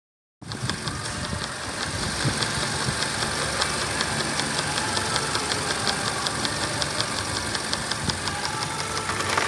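Hyundai i40 2.0-litre four-cylinder engine idling steadily, with a light, even ticking about five times a second.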